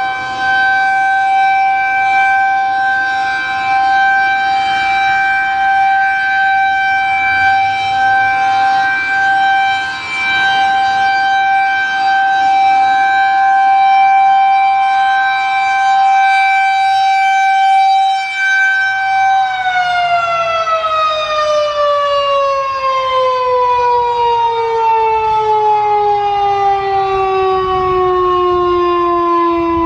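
Federal Signal 2001-130 rotating electromechanical warning siren sounding a steady alert tone. About two-thirds of the way through, the tone gives way to a long, smoothly falling wind-down as the siren's motor is cut and the rotor coasts to a stop, ending the full-alert test signal.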